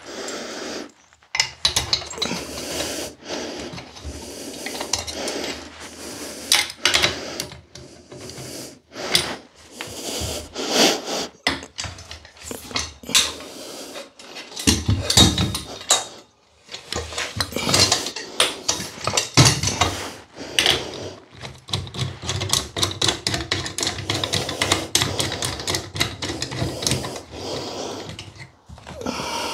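Parallette bars and their fittings being handled and screwed together: a run of irregular metallic clinks, knocks and scraping as the parts are twisted and slid into place.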